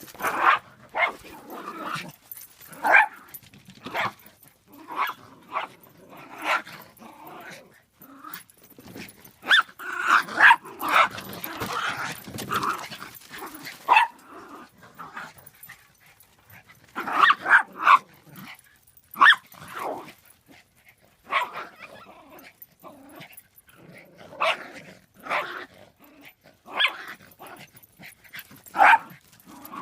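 Dogs barking, yipping and growling in irregular short calls, with busier flurries in the middle.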